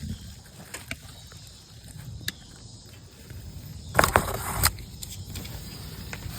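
Handling noises of work at an ATV's oil filter: scattered light clicks and a louder scraping clatter about four seconds in, over a low steady rumble.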